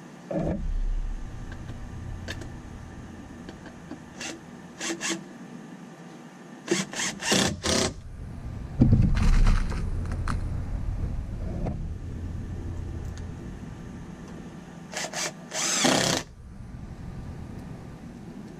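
Cordless drill/driver driving screws into a wooden box frame in short bursts, a few at a time, with low knocks and rumble of the boards being handled between them.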